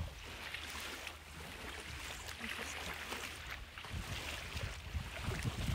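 Wind rumbling on the microphone, gusting harder about four seconds in and again near the end, over a steady hiss of small lake waves washing onto a sandy shore.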